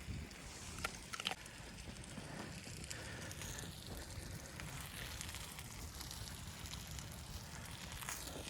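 Wood fire crackling faintly over a low steady rush, with a couple of sharp pops about a second in.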